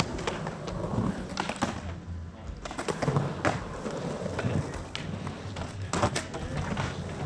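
Skateboard wheels rolling on a concrete bowl, with sharp clacks and knocks of boards about a second in, around three seconds and loudest near six seconds.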